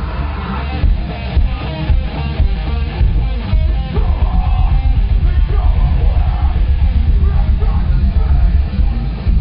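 Loud live heavy rock band playing, with distorted guitar and heavy, pounding bass and drums, and yelled vocals.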